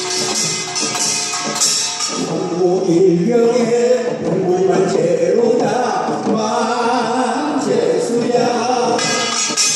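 Korean traditional percussion music: quick strikes on small hand drums and barrel drums, then from about two seconds in a male voice sings a chant-like melody over lighter drumming, with the percussion strikes coming back strongly near the end.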